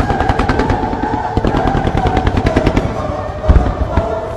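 Fireworks firing in a rapid volley, many sharp cracks a second from fan-shaped ground-launched displays, with one heavier boom about three and a half seconds in. Music plays underneath.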